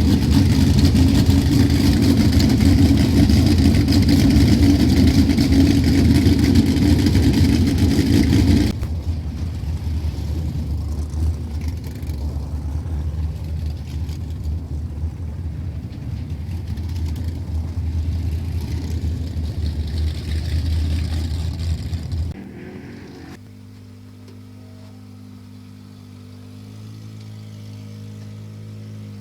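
Race car engines running loud, heard in edited clips: the sound drops abruptly about nine seconds in and cuts off about twenty-two seconds in. Quieter steady tones follow near the end.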